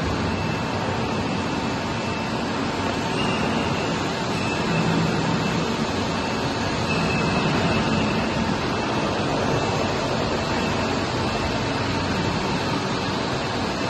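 Steady machinery noise with a faint steady whine: a hydraulic power unit running and driving the A-frame's hydraulic cylinders as the frame slowly tilts.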